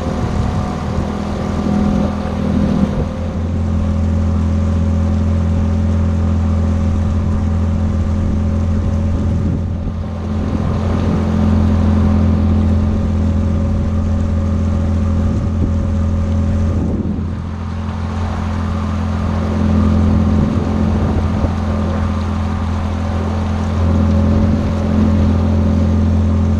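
A new Tohatsu 9.8 two-stroke outboard motor runs steadily under way, pushing the boat during its break-in, with a slight dip in engine sound twice.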